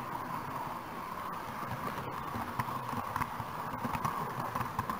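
Model train rolling along the layout's track, heard from a camera riding on it: a steady running hum with irregular clicking and clattering of wheels over rail joints, busier in the second half as it runs onto the points.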